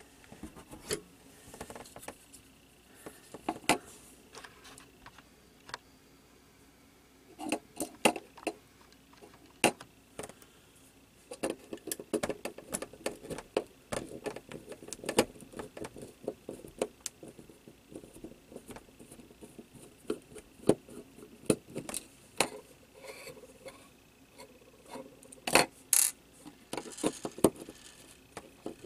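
Small hard-plastic clicks, taps and scrapes as a plug-in nightlight's casing is handled and its small Phillips screws are worked with a screwdriver. The clicks come in scattered clusters, busiest in the middle and near the end.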